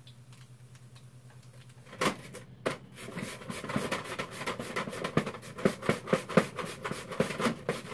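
Korean radish being julienned on a handheld radish slicer over a glass bowl: quick repeated slicing strokes, several a second, starting about two seconds in.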